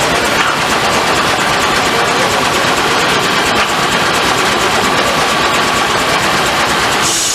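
Steam-powered sawmill machinery running: a loud, steady mechanical din with fast low pulsing and a faint steady whine. Near the end the sound changes to a higher hiss with less low rumble.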